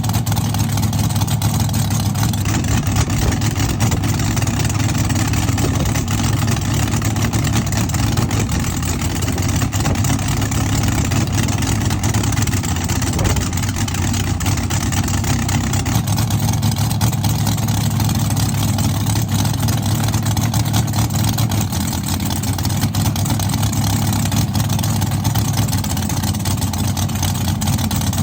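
A loud car engine idling steadily, its sound sitting low and even, with no revving.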